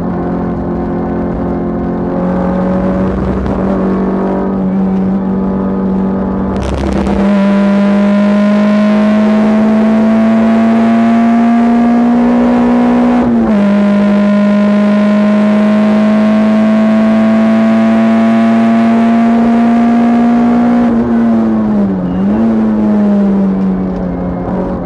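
Škoda Felicia 1.3 MPI's four-cylinder engine heard from inside the cabin on track, pulling hard from about 7 s in with its pitch climbing slowly. The revs drop sharply for an upshift about halfway through and climb again. Near the end the car lifts off, with a quick dip and rise in revs as it slows for a corner.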